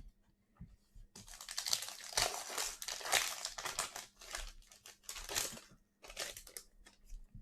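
Plastic overwrap on a trading-card blaster box or pack crinkling and tearing as it is pulled at by hand; it is stubborn and won't come off easily. The crackling starts about a second in and comes in stretches with brief pauses.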